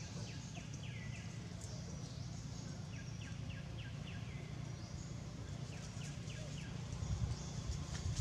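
Outdoor ambience with a steady low rumble and a series of short, high, downward-sweeping chirps. Near the end come louder rustling thumps as a macaque runs over dry leaves.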